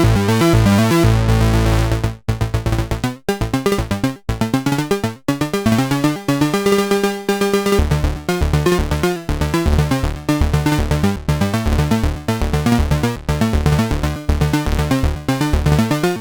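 Synthesizer arpeggio driven by a keyboard arpeggiator, playing a fast repeating pattern of pitched notes over a deep bass, with tied and ratcheted (rapidly repeated) steps in a custom rhythm. A longer held note comes about seven seconds in.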